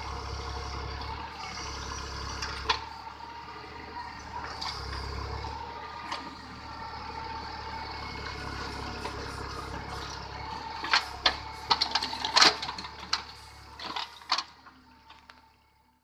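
Mahindra 605 Novo tractor's diesel engine running steadily under load while its mounted hydraulic backhoe digs. From about eleven seconds in there is a string of sharp knocks and rattles as the bucket works through stony soil, then the sound fades out near the end.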